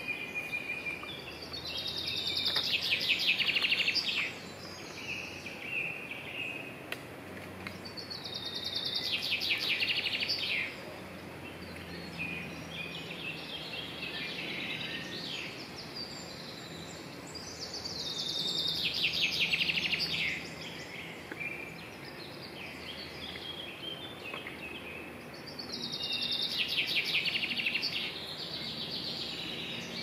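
Woodland birdsong: one songbird repeats a loud song phrase of two to three seconds four times, about every eight seconds, each phrase a quick run of rapid trilled notes. Fainter calls of other birds fill the gaps.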